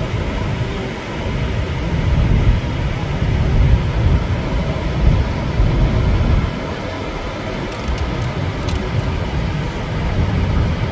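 Steady roar of Niagara's Horseshoe Falls, a constant rushing-water noise with a heavy low rumble that swells and dips.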